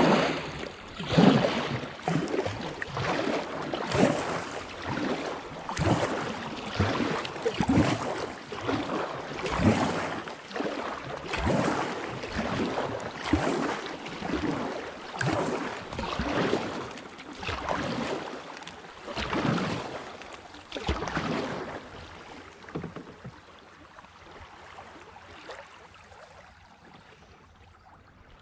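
Double-bladed kayak paddle strokes pulling through river water, a splashing swish about once a second. The strokes fade away over the last few seconds.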